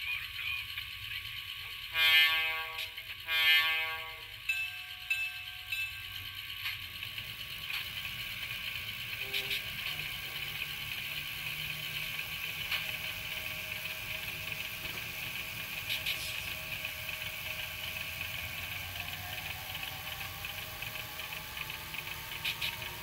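Tsunami TSU-1100 sound decoder in a model Pacific Electric trolley playing through its miniature speaker: two blasts of an air horn about two and three and a half seconds in, then a few shorter sounds and a steady hum, with a whine rising in pitch near the end.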